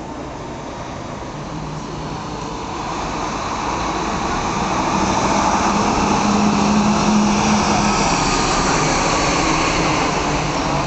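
A public-transport vehicle picking up speed, its running noise growing steadily louder, with a hum that rises in pitch as it accelerates.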